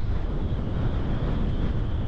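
Wind buffeting the microphone: a steady low rumble with a faint high whine running underneath.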